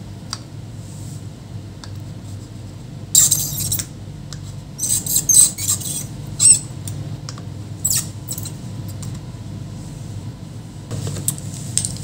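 Soldering iron heating a small surface-mount capacitor off a laptop motherboard, with flux sizzling and crackling in short spurts over a steady low hum. The capacitor is being removed as the suspected short on the power line.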